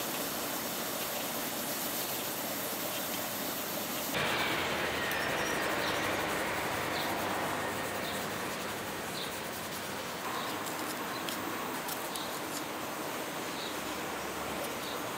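Small kitchen knife peeling a raw turnip by hand, the blade scraping and cutting through the skin in short strokes, over outdoor background noise with faint bird chirps.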